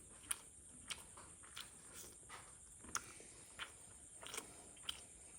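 Person chewing chicken from a leg piece: faint, irregular wet mouth clicks and smacks, roughly two a second.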